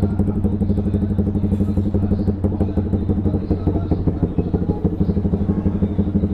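Motorstar GPR250 motorcycle engine idling steadily through its aftermarket stainless full exhaust, with the mid-pipe leak freshly welded shut.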